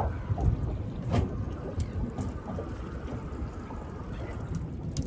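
Small boat on the water: an uneven low rumble of water and wind against the hull, with scattered knocks and taps.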